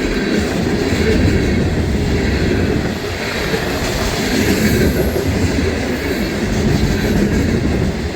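Freight cars of a CSX manifest train rolling past close by: a steady, loud noise of steel wheels running on the rails.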